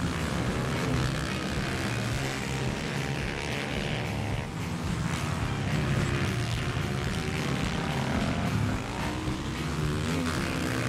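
Four-stroke Honda CRF dirt bike engine running under throttle, revving up and down as the rider works through the corners.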